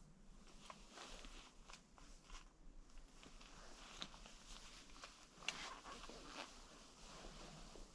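Near silence with faint, scattered rustles and small clicks, a slightly louder rustle about five and a half seconds in.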